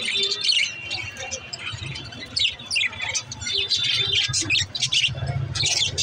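A flock of budgerigars chirping and chattering, a continuous stream of short, quick chirps.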